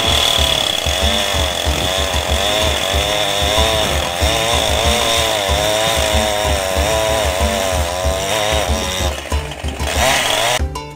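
Two-stroke petrol chainsaw running at high revs, its pitch wavering up and down as the chain saws through a rhino's horn; the engine note drops away about nine seconds in.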